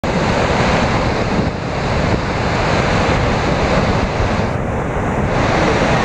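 Salto Grande waterfall on the Paine River: a steady, loud rush of heavy falling water crashing into the pool below.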